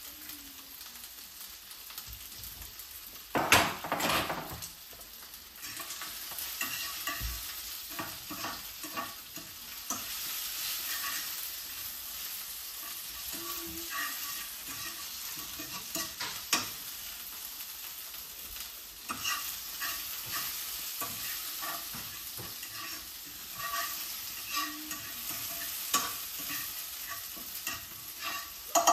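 Spinach sizzling in hot oil in a nonstick frying pan as it is stirred, with the utensil clicking and scraping against the pan now and then. A brief louder burst of noise comes about four seconds in.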